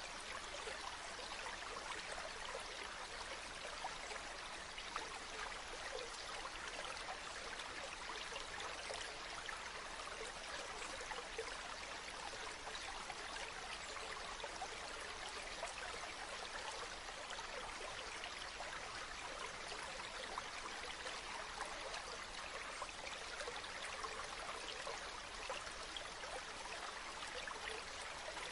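River stream flowing: a steady, even rush of water with no breaks.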